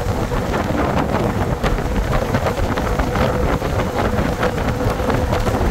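Road noise from a moving vehicle: a steady low rumble of engine and tyres, with wind buffeting the microphone and a faint steady tone running through it.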